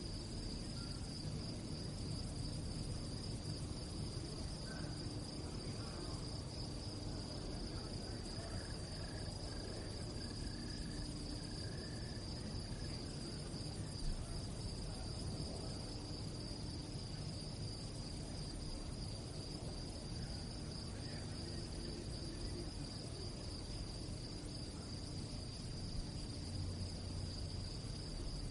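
Crickets chirping at night in a continuous high-pitched trill, with a low steady rumble underneath.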